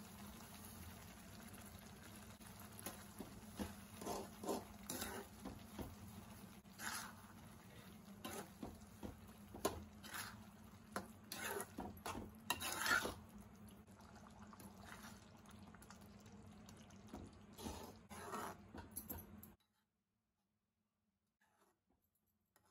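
Vermicelli kesari cooking in a pan while a metal slotted spatula stirs it, scraping and clacking against the pan again and again over a steady low hiss. The sound cuts off suddenly near the end.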